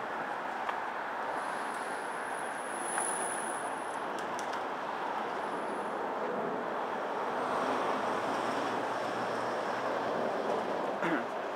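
Steady city-street ambience: an even rushing noise of traffic and air picked up by a pocket camcorder's built-in microphone while it is carried along a sidewalk, with a faint high whine between about one and four seconds in.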